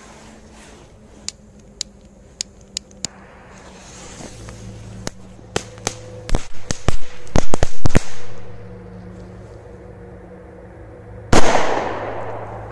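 Firecrackers going off on pond ice. A quick run of sharp bangs and crackles comes from about five to eight seconds in, then a single loud bang near the end with a long fading tail.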